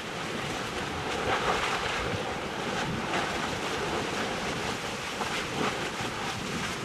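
Erta Ale's lava lake churning and splashing: a steady surf-like rushing that swells and eases, with faint crackles, mixed with wind on the microphone.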